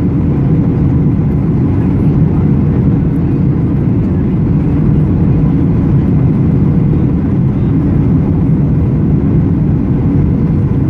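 Steady cabin noise inside a Boeing 737-800 on approach with flaps extended: a low, even rumble of its CFM56-7B turbofan engines and the airflow past the fuselage, with a faint steady hum above it.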